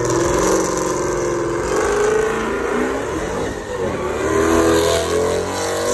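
A car's engine revving hard and unevenly, rising and falling, as the car spins donuts on pavement.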